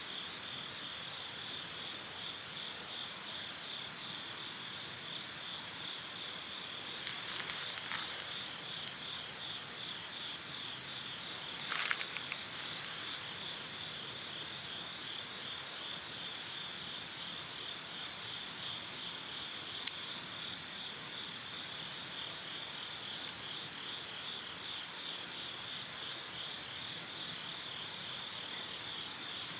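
Insects chirping in a steady, high, rapidly pulsing chorus. A few short sharp crackles or clicks stand out over it, the sharpest about two thirds of the way in.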